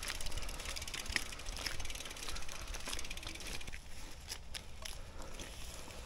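Bicycle under way, with a rapid, even ticking for roughly the first three seconds over a steady low rumble of wind and tyres, and a few louder clicks.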